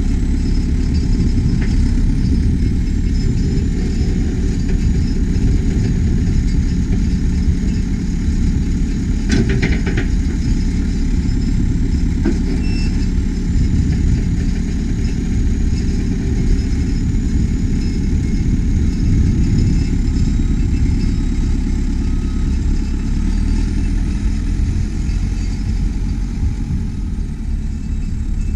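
2007 JCB 4CX backhoe loader's diesel engine running steadily, with a short clatter of knocks about nine seconds in and a faint high whine that drifts in pitch.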